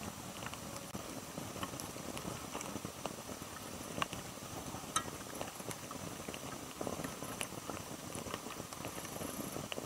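Split-log Swedish fire torch burning, the wood crackling with irregular sharp pops, the sharpest about three, four and five seconds in.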